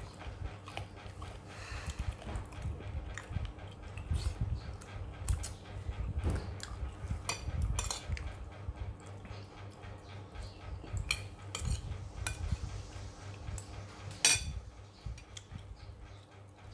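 Metal spoon clinking and scraping against a ceramic plate while scooping rice, a run of irregular light clicks with one sharper clink about fourteen seconds in.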